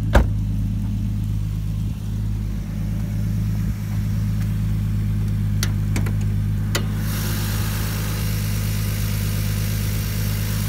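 Lexus IS300's 3.0-litre inline-six idling steadily through a GReddy aftermarket exhaust. There is a sharp knock just after the start and a few clicks about six seconds in. From about seven seconds, more high hiss joins as the engine is heard from over the open engine bay.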